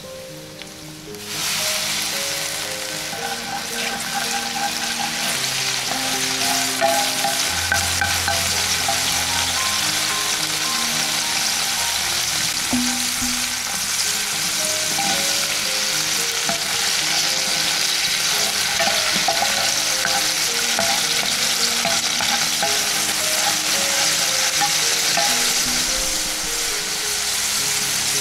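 Minced garlic sizzling in hot olive oil in a steel pan. The sizzle jumps up suddenly about a second in and then holds steady, with quiet background music underneath.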